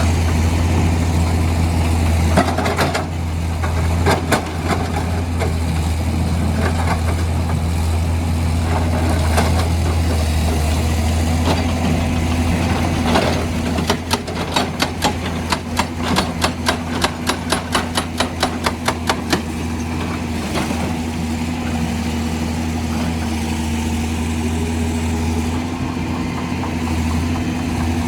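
Heavy diesel excavator engine running steadily, with scattered knocks and, about halfway through, a run of rapid regular knocks, roughly four a second for about five seconds, as rock is broken.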